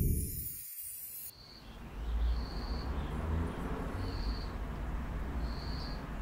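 Music fading out in the first second, then a quiet outdoor ambience: a low rumble and hiss with a few short, high chirps spaced irregularly.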